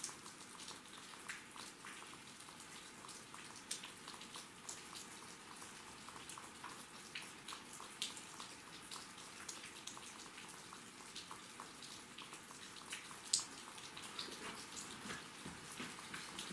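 Rain and dripping water at a cave mouth: a soft steady hiss with many irregular, scattered ticks of falling drops.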